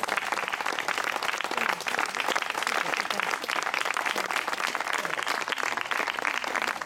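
Audience applauding, many hands clapping in a steady, unbroken spatter.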